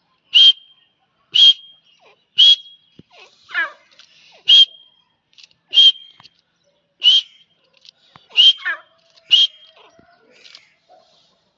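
Grey francolins calling: a sharp, high note repeated about once a second, with a lower, falling, wavering call twice in between.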